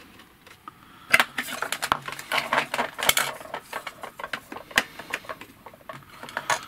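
Clicks, rattles and rustling of cables and plastic being handled as a lead is fitted into the side of a small portable TV, starting about a second in.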